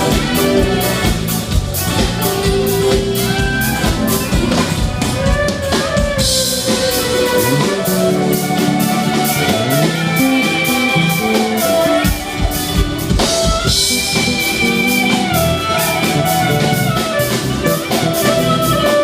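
Live band playing a song through a PA at a sound check: drum kit keeping an even beat under guitar and a melodic line.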